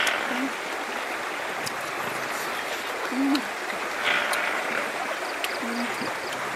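Steady rush of flowing river water. Three short, low-pitched calls come a little under three seconds apart.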